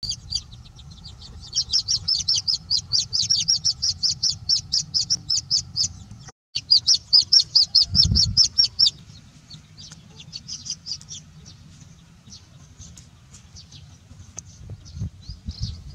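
Baby chicks peeping rapidly and loudly, about five peeps a second, with a short break about six seconds in. After about nine seconds the peeping turns fainter and sparser. A low rumble runs underneath, with a single low thump about eight seconds in.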